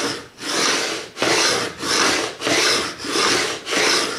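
A diamond file in a fret-end bevelling guide rasped back and forth along the edge of a Telecaster fretboard, bevelling the ends of the new frets. About seven even strokes, a little under two a second.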